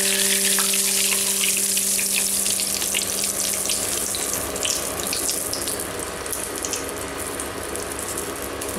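Green chillies and curry leaves frying in hot oil inside a wire-mesh strainer dipped into a kadai: a steady sizzle with many small sharp crackles.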